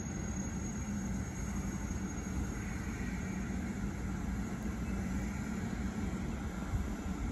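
JR West Series 381 electric limited-express train pulling slowly into the station, giving a steady low rumble as it approaches.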